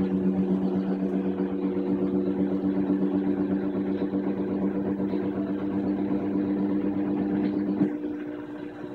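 Kenmore washing machine in its spin cycle: the motor and spinning tub make a loud, steady hum that drops off suddenly about eight seconds in, as the motor stops driving. The fault behind the noise is a stator-cover nut at the bottom of the tub that has backed off, so the tub keeps spinning while the agitator stops.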